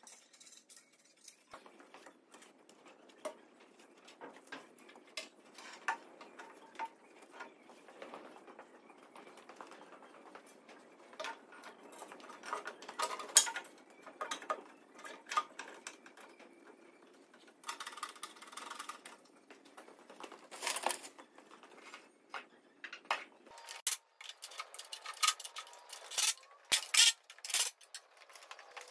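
Metal tools and parts clinking, tapping and knocking intermittently while work is done on a tractor's engine, with a denser run of sharp clinks near the end.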